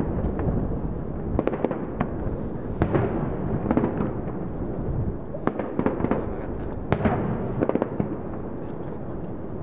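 Fireworks bursting in an irregular series of sharp bangs and crackles, some in quick clusters, over a continuous low rumble.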